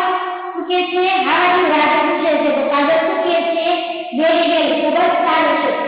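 Singing voice with long held notes, one sung phrase after another with short breaks between them.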